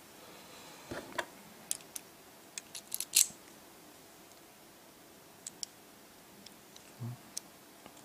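Scattered light metallic clicks and scrapes of a key being worked in a brass Union round lock cylinder, with the loudest cluster about three seconds in.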